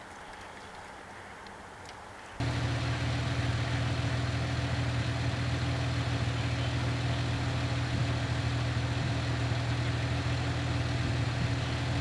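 Faint hiss with a few light ticks, then about two seconds in a loud, steady low hum cuts in abruptly, like a vehicle engine idling, and holds unchanged.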